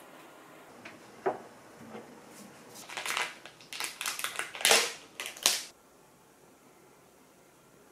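Foil lid being peeled off a plastic yogurt cup: a run of crinkling and tearing lasting about three seconds, loudest near the end. A single knock comes shortly before it.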